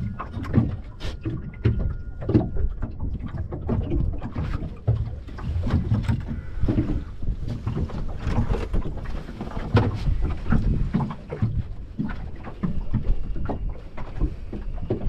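Wind buffeting the microphone and water against a small boat's hull, with scattered knocks from people moving about on board. No engine is running.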